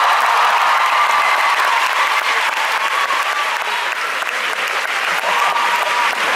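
Concert audience applauding steadily, with scattered cheers rising out of the clapping.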